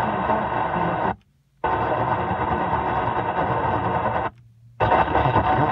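Car stereo AM tuner stepping up the dial through weak frequencies. It gives out loud hissing static with a jumble of faint signals, and twice cuts to silence for about half a second as the tuner mutes between steps.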